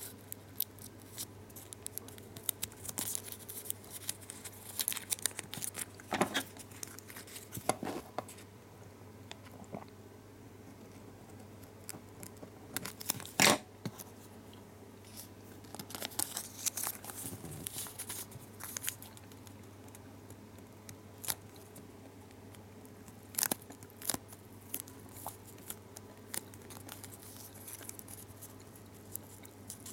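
Foil-backed gum wrapper crinkling and crackling as fingers fold and crease it, in irregular bursts with pauses between them; the sharpest crackle comes about thirteen seconds in.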